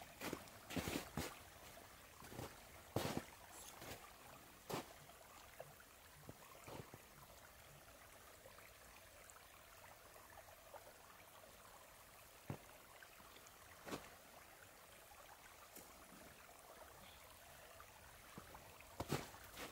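Faint steady trickle of running water, with scattered rustles, taps and crunches as tarp lines are handled and feet step in snow. These are busiest in the first few seconds and again near the end.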